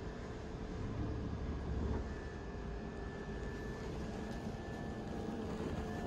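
Steady hum and hiss inside a ČD InterJet passenger coach, from its ventilation and on-board electrical equipment, with a thin steady high whine over it. A low rumble swells briefly between one and two seconds in.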